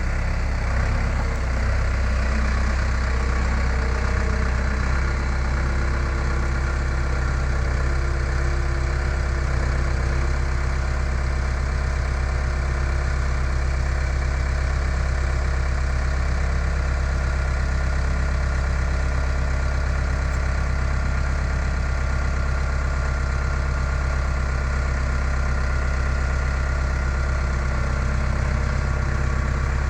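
Skid steer engine idling steadily, a constant low hum with no change in speed.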